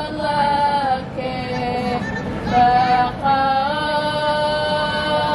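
A singing voice holding long notes of about a second each, moving in steps from one pitch to the next.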